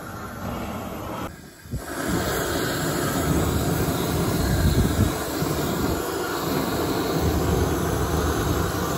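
GrillBlazer GrillGun propane torch running with a steady rush of flame. It drops out briefly about a second and a half in, then comes back louder.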